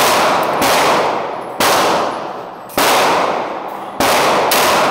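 Heckler & Koch USP 9mm pistol fired five times, about one shot a second with the last two closer together, each report ringing off the walls of an indoor range.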